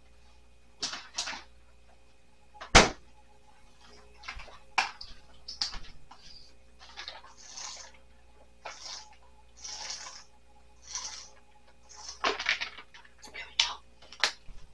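Someone handling things at a table: scattered clicks and knocks, one louder knock about three seconds in, with short rustling sounds in between.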